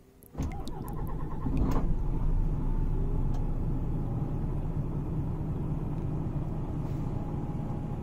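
DAF truck's diesel engine cranking on the starter, catching about two seconds in and settling into a steady idle.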